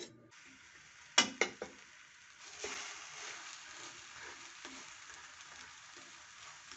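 Three sharp knocks about a second in, then a patishapta pitha (thin flour-and-rice-flour crepe) sizzling steadily in an oiled frying pan, the sizzle starting about two and a half seconds in.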